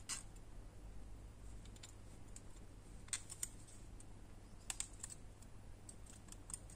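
Faint, scattered small clicks and ticks of thin craft wire and little wooden craft sticks being handled as the wire is twisted around the sticks. The clicks come irregularly, a couple of louder pairs about three seconds in and near five seconds.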